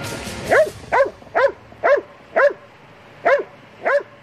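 A trained protection dog barks seven times at a handler's padded bite sleeve during bite work. The barks are sharp and come about two a second, with a short pause after the fifth.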